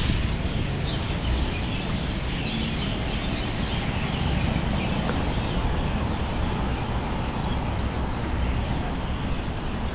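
Steady outdoor street ambience: a low, constant traffic rumble with many birds chattering above it.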